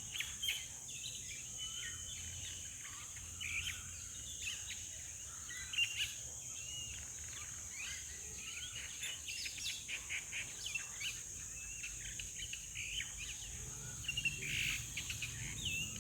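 Wild birds chirping and calling in many short, quick notes over a steady high insect drone, with a low rumble underneath.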